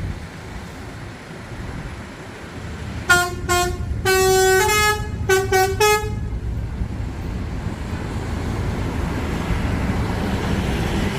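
Bus's Basuri 'telolet' multi-tone horn playing a short tune of about seven notes at a few different pitches, starting about three seconds in: two short toots, two longer held notes, then three quick toots. A steady low rumble of engine and traffic sits underneath.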